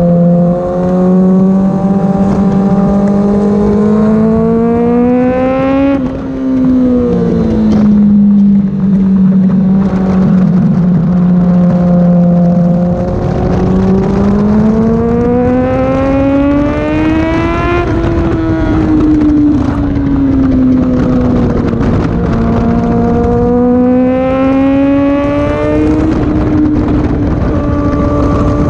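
Honda CBR600RR's inline-four engine running hard on track, its pitch climbing for several seconds at a time and falling away between climbs, with a sharp drop about six seconds in. A steady rush of wind noise runs under it.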